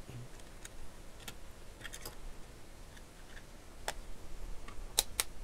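Plastic case halves of a Canon LC-E5E battery charger being handled and fitted together: scattered light clicks and taps, with a sharper pair of clicks about five seconds in.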